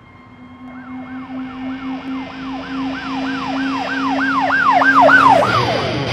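A siren sound effect in the song's intro, yelping in quick up-and-down sweeps about three times a second over a steady low hum. It grows louder and slides away near the end.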